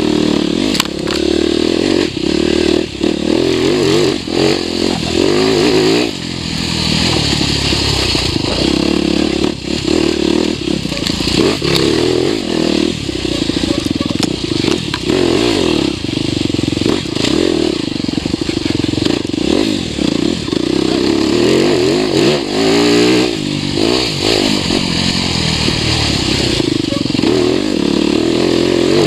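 TM 300 EN Fi enduro motorcycle engine running under load on a trail, its pitch rising and falling with the throttle the whole time, with frequent knocks and clatter from the bike over rough ground.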